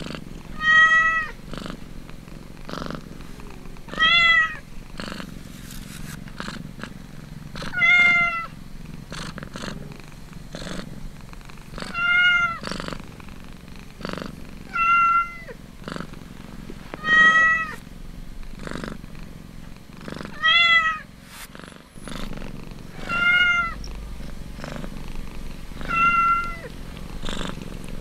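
Kittens mewing over and over, a short high mew every two to four seconds, over the mother cat's steady low purring while they nurse.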